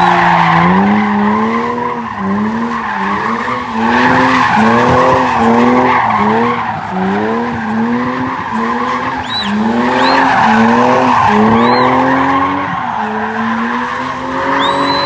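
BMW 325i convertible's straight-six engine revving up and falling back over and over, about once a second, as the car drifts with its tyres squealing. Near the end the revs climb in one long, steadier pull.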